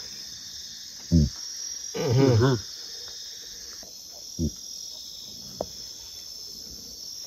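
A steady high chorus of crickets and other night insects, broken by a few short, louder low sounds, the loudest a brief wavering voice-like sound about two seconds in.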